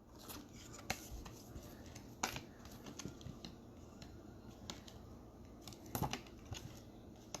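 Faint handling of trading cards and a plastic card holder: light rustling with scattered sharp plastic clicks, the clearest about a second in, a little after two seconds and about six seconds in.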